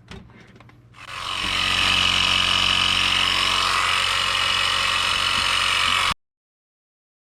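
Small portable air compressor running steadily as it inflates the freshly plugged tire, starting about a second in and cutting off abruptly near the end.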